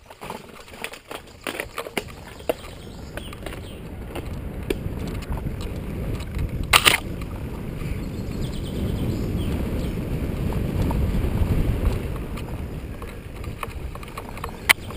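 Mountain bike riding over a rough grassy forest track: a low rumbling rush of tyres and air on the microphone that grows louder over the first ten seconds or so, scattered with small rattles and clicks from the bike. There is a loud clatter about seven seconds in and a sharp knock near the end.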